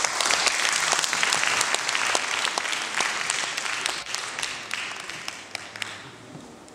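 Audience applause, many hands clapping together, dying away over the last two seconds.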